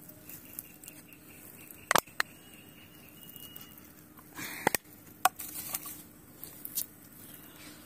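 Scattered sharp clicks and light knocks of small objects being handled, the loudest a quick double click about two seconds in, over a faint steady hum.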